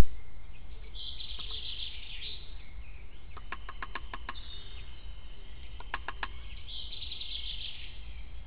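Wild songbirds singing: two fast, trilled song phrases of high repeated notes, one about a second in and one near the end. Between them come two quick runs of sharp clicks, over a steady low rumble.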